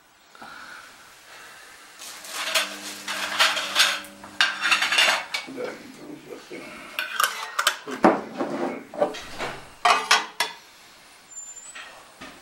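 Glass jars clinking and knocking against each other and against the steel stand of a honey bottling machine as a filled jar is taken away and an empty one is set under the tap: a busy run of clinks for several seconds in the middle, some of them ringing briefly.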